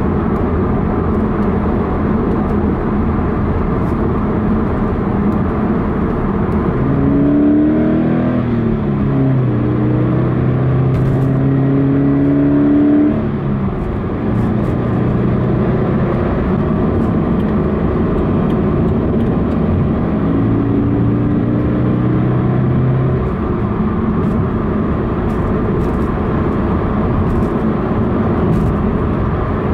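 Subaru BRZ's 2.0-litre flat-four engine and road noise, heard from inside the cabin while driving. About seven seconds in the engine note climbs under hard acceleration and holds, then drops away about thirteen seconds in. A second steady pull follows from about twenty to twenty-three seconds.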